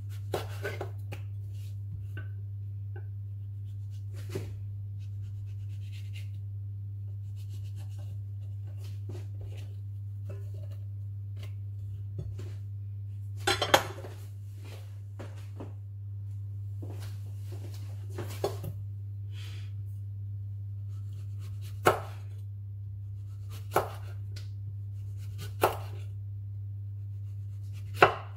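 Kitchen knife slicing a courgette on a wooden chopping board: sharp knocks as the blade meets the board, scattered at first and about every two seconds near the end, over a steady low hum. A brief, louder clatter comes a little before halfway.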